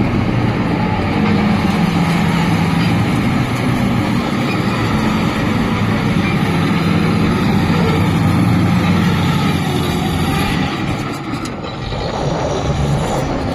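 Shantui SD22 crawler bulldozer's diesel engine running steadily while the machine works, a low engine drone under a broad mechanical clatter. It eases off a little near the end.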